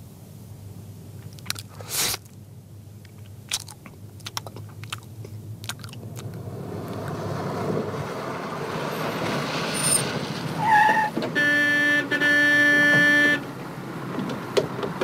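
Scattered clicks of someone eating cake with a spoon, with one sharper clink about two seconds in. Then a military jeep's engine comes in, getting louder. It ends with two blasts of its horn, the second longer.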